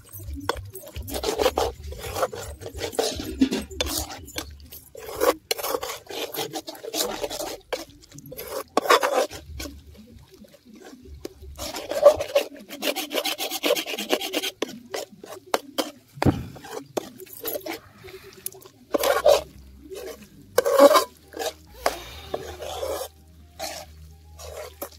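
Metal ladle scraping and stirring thick, steaming goat's blood poriyal in a large metal pan, in uneven repeated strokes.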